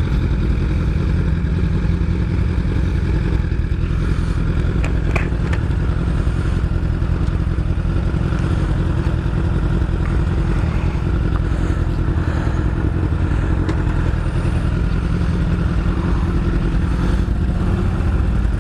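Honda CBR1000RR inline-four motorcycle engine running steadily at low speed, a dense, even low rumble with no revving.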